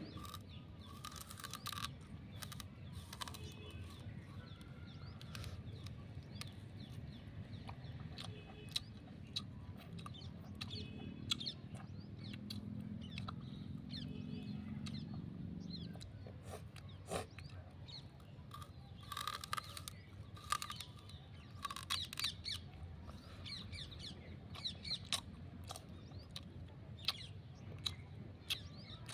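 Birds chirping, with many short sharp clicks scattered through.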